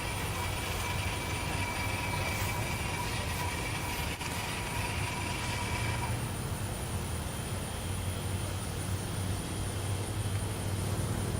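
Steady low vehicle rumble, with a faint steady high-pitched tone over it. A faint pair of higher tones stops about six seconds in.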